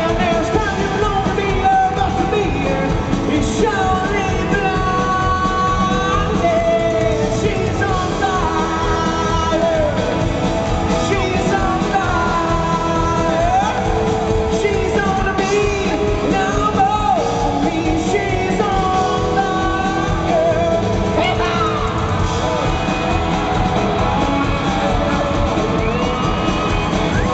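A live rock band playing a country-style arrangement of a song. A male lead vocal sings over acoustic and electric guitars and the full band.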